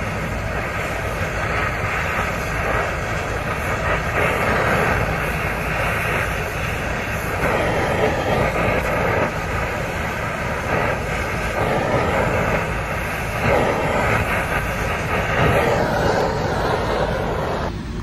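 Oxy-fuel brazing torch flame hissing steadily while a filter dryer is brazed into the copper liquid line, stopping near the end.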